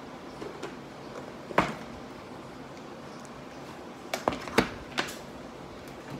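A spoon working crinkle cookie dough in a stainless steel mixing bowl, knocking against the bowl: one sharp knock about one and a half seconds in and four more in quick succession near the end.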